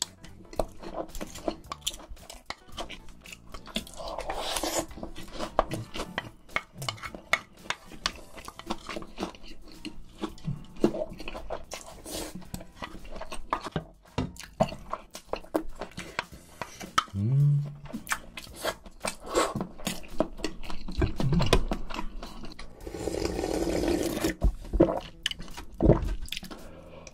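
Close-miked eating sounds: a wooden spoon scraping and tapping fried rice off a ceramic plate, and chewing of ham-and-vegetable fried rice with flying fish roe, full of many small crunchy clicks.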